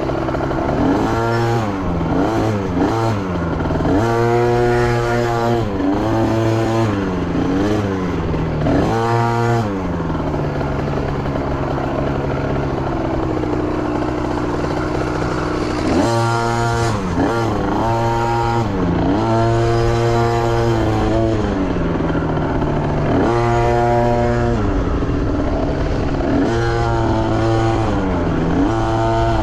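Dirt bike engine revving up and falling back over and over as it is ridden on a trail, with a steadier stretch near the middle.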